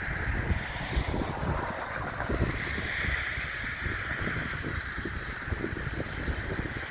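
Snowstorm wind buffeting the microphone in uneven gusts, with a steady hiss over it.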